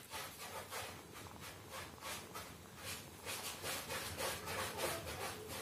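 Kittens suckling at their mother cat, a rhythmic run of wet sucking and smacking clicks, about three or four a second, as they jostle for milk.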